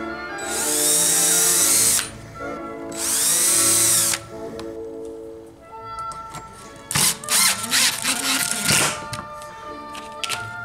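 Makita cordless drill running in two bursts of about a second and a half each, its pitch sweeping as it spins up and winds down, driving into a stainless bracket on a wooden table top. About seven seconds in there is a quick run of sharp clicks and rattles. Background music plays throughout.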